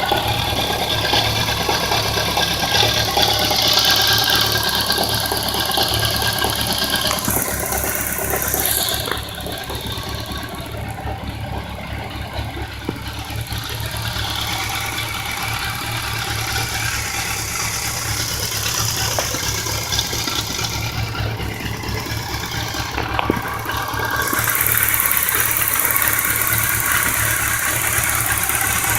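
1999 BMW K1200RS inline-four engine idling with a knock and a fast ticking noise, the fault the owner is recording. The sound is a little quieter for the middle stretch, then louder again.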